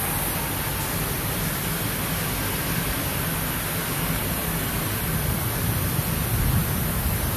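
Steady background noise: a constant high hiss over a low rumble, with no distinct calls or knocks.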